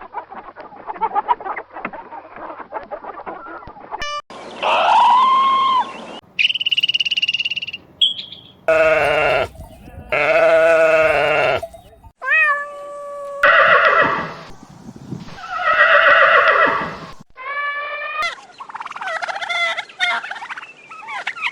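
A run of different farm animal calls, one after another, each cut off abruptly as the next begins.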